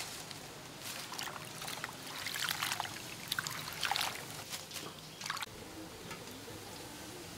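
Hands swishing and rubbing leafy greens in a metal basin of water, splashing and sloshing in irregular bursts, quieter near the end.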